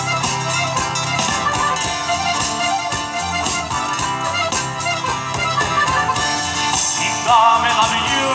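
Live folk band playing a brisk, steadily rhythmic southern Italian tarantella-style tune led by accordion, with acoustic guitars and bass guitar, amplified through the stage PA.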